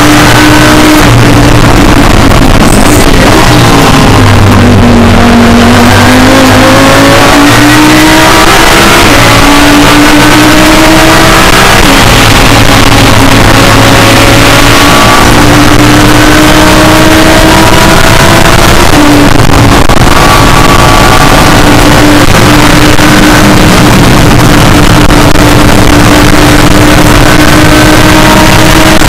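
Audi R8 LMS GT3 race car's V10 engine at full throttle, heard from inside the cockpit. It is very loud. The pitch drops about four seconds in, then climbs again, with breaks where the gears change.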